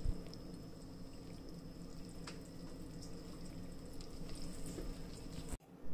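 Wooden spoon stirring a wet fa gao batter of flour mix and water in a glass bowl: faint wet stirring with a few light clicks, over a steady low hum.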